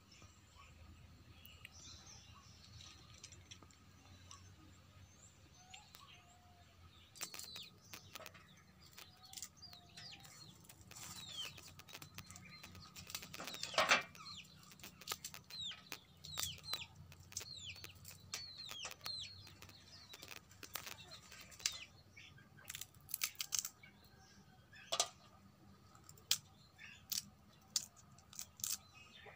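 Sporadic crisp snaps and rustles of roselle flower calyces being plucked off their stems by hand, with a louder snap about halfway through. Small birds chirp now and then.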